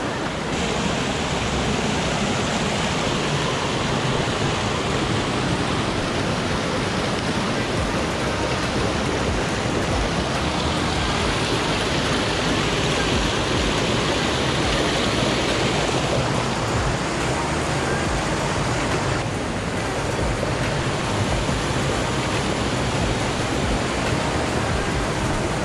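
Mountain stream rushing and splashing over boulders, a steady roar of white water.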